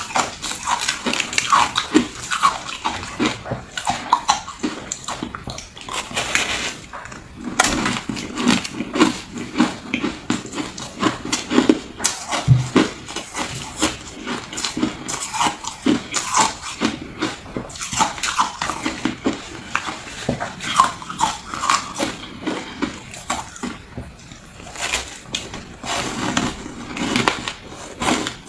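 Shaved ice chunks being bitten and chewed, a dense run of irregular sharp crunches with wetter chewing between bites.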